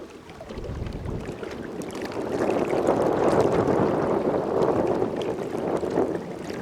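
Storm wind and water noise around a small boat, swelling louder about two seconds in, with scattered light ticks.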